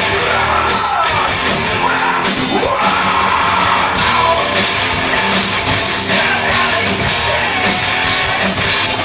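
Live heavy rock band playing loud and steady, with electric guitars and drums under a shouted vocal.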